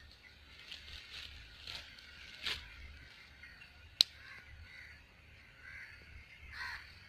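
Birds calling in short, scattered calls, with one sharp click about four seconds in.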